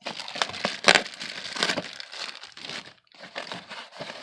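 Plastic packaging crinkling and crackling as it is handled and opened, with a short pause about three seconds in.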